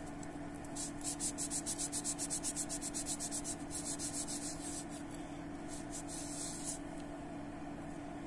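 Wad of paper towel rubbed quickly back and forth over a carbon-blackened piston crown, about six strokes a second for a few seconds, then a shorter bout of rubbing. A steady low hum runs underneath.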